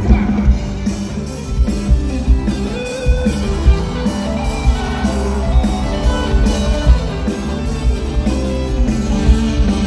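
A live band playing loudly through a large concert PA, with electric guitar over steady drum-kit hits.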